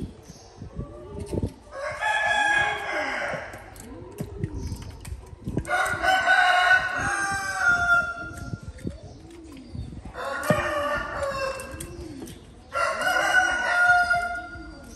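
A rooster crowing four times, each crow lasting a second or two, a few seconds apart.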